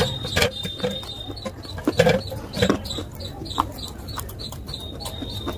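Close-miked chewing of a big mouthful of slate-pencil powder paste: irregular sharp crunches and mouth clicks, the loudest about two seconds in. A thin, high steady tone sounds faintly in the background at the start and again near the end.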